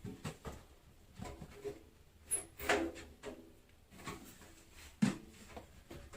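Scattered clicks and knocks of parts and tools being handled, the sharpest a single knock about five seconds in.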